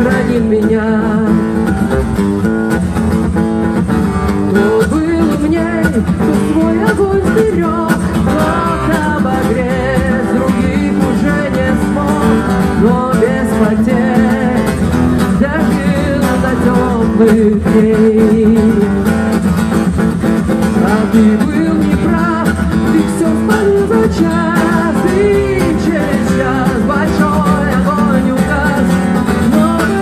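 Live acoustic guitar strumming with a woman singing, amplified through a PA system.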